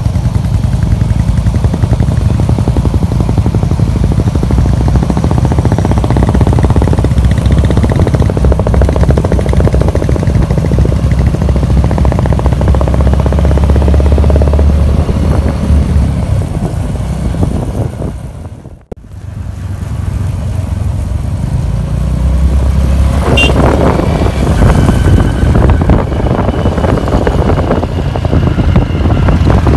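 Motorcycle engines running steadily while riding at road speed, heard from on board a moving motorcycle. The sound dips out briefly about two-thirds of the way through, then carries on.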